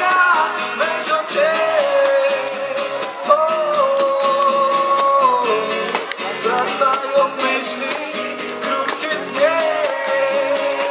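Live band music from the stage: a sung lead vocal with long held notes over acoustic guitar and a steady drum beat, heard through the concert loudspeakers.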